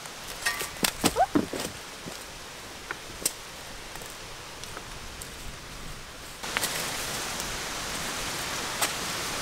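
A shovel and rocks scraping and knocking in dry, rocky soil, with a cluster of sharp knocks in the first two seconds. A steady rushing hiss sets in about two-thirds of the way through.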